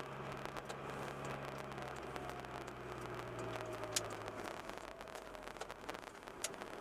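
Car running, heard from inside the cabin: a steady low engine and road hum that drops away about four and a half seconds in as the car slows toward a red light. Two sharp clicks come partway through.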